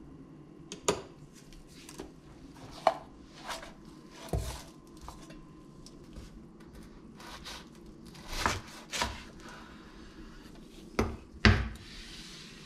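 Kitchen handling sounds: a chef's knife cutting through a toasted burrito on a wooden cutting board, with a series of separate knocks and scrapes of the blade and the board, the loudest near the end.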